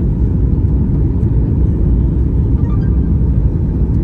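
Steady low rumble of engine and airflow noise heard inside the cabin of a Boeing 737 MAX airliner.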